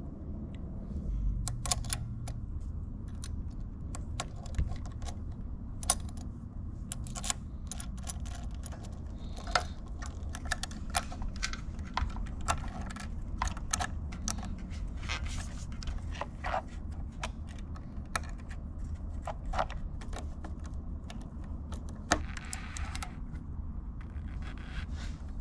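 Small metal carburetor parts, screws and hand tools clicking and clinking irregularly as the generator's carburetor is reassembled, over a low steady hum.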